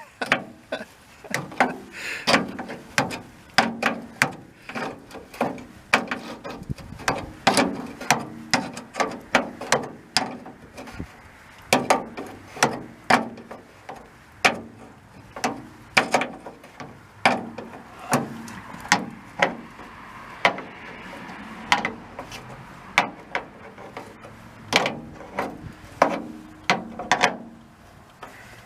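Hand ratchet clicking in short runs, with occasional knocks of metal parts, as the rear cargo door latch mechanism is fastened in place.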